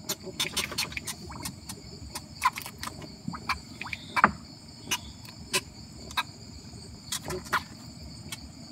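A night insect chorus, a steady high chirring, with many irregular sharp clicks and knocks throughout.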